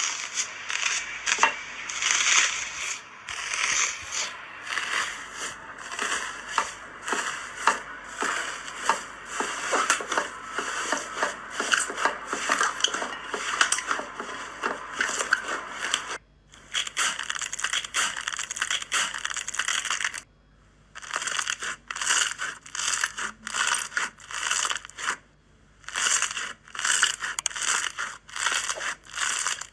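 Slime being handled, a dense run of small sharp crackling pops and clicks, broken by brief pauses about 16, 20 and 25 seconds in.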